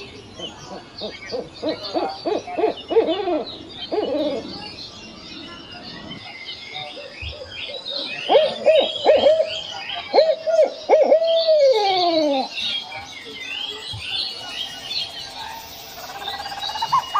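An owl calling in two bouts of quick, repeated hooting notes. The second bout ends in a long falling call, while small birds chirp high in the background throughout.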